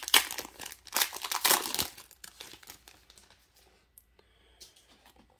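Clear plastic wrapper of a football trading-card pack crinkling and tearing open. The noise is dense for about the first two seconds, then gives way to quieter handling of the cards.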